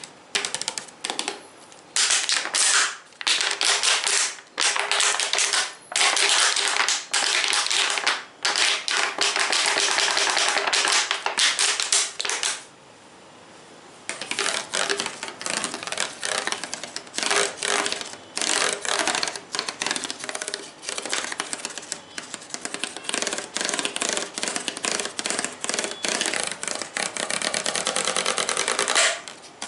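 Fingers tapping rapidly on objects, a dense run of quick clicks in bursts, with a short pause about thirteen seconds in.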